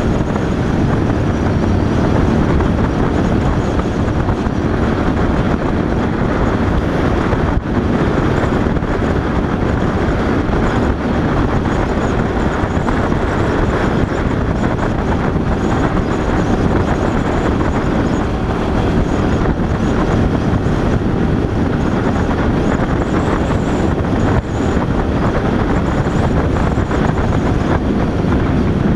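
Motorcycle riding at a steady cruising speed: a continuous rush of wind and road noise over engine rumble, with a Screaming Eagle-equipped Harley-Davidson running just ahead.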